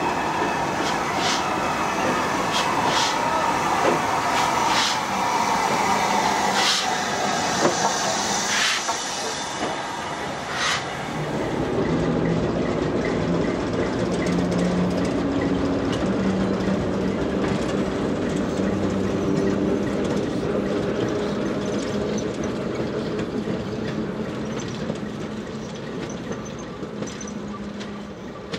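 Diesel shunter moving off with a small coupled locomotive: sharp wheel clicks over rail joints and points in the first part, then a steady diesel engine note from the shunter, fading as the pair move away near the end.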